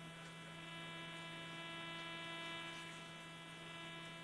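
Faint, steady electrical hum with a buzzy edge on the audio feed, unchanging, between callouts.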